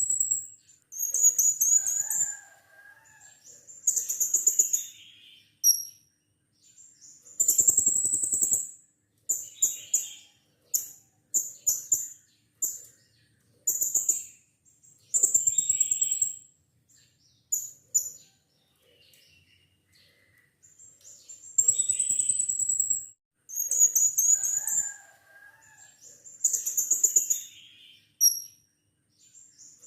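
Blue-crowned hanging parrot (serindit) giving repeated shrill, very high-pitched calls in bursts of about a second, some of them trilled, with short pauses between.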